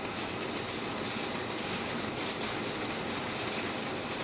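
Lathe turning a 42CrMo4 (4140) steel bar with a CNMG carbide insert on a heavy roughing cut, 5 mm deep at 0.4 mm feed: steady cutting noise full of a dense rattle of breaking chips, with a faint thin high tone.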